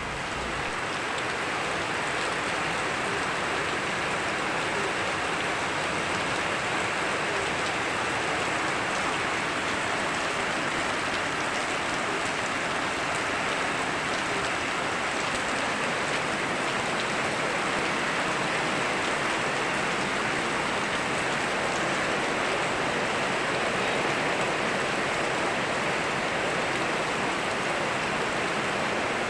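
Rain falling together with a rushing river: a steady, even hiss of water.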